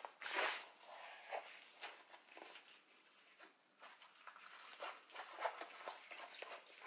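Diamond-painting canvas and its plastic-coated cover sheet rustling and crinkling as it is handled and rolled up by hand, with a louder rustle about half a second in and irregular crinkles after.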